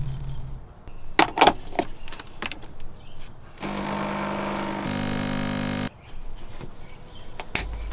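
A few sharp clicks, then a home espresso machine's pump buzzing for about two seconds, turning to a steadier, more even buzz halfway through and cutting off suddenly. Another sharp click comes near the end, followed by a low hum.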